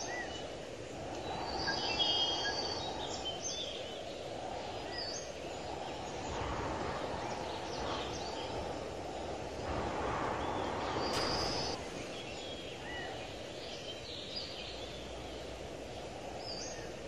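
Outdoor rural ambience: a steady background hiss with short bird chirps now and then.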